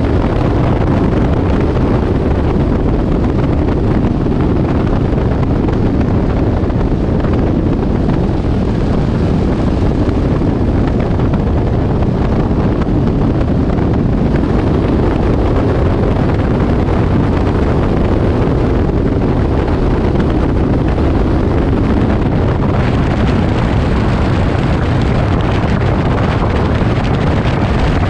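A light aircraft's piston engine and rushing air in flight, a loud, steady drone. About 23 seconds in, the hiss in the upper range gets somewhat louder.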